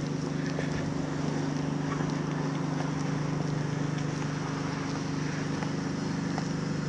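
A steady engine hum that holds the same low pitch throughout, from an idling engine or a running generator.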